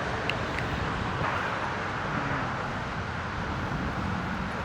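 Steady road-traffic noise, a constant wash of passing vehicles, with a couple of faint light clicks in the first second.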